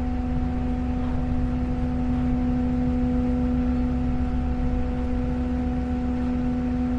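Boat or ferry machinery running at the dock: a steady, unchanging hum over a continuous low rumble.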